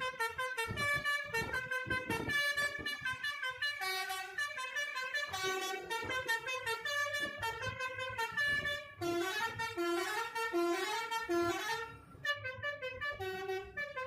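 Basuri 'telolet' musical bus horn playing a quick tune of short stepped notes, pausing briefly near the end.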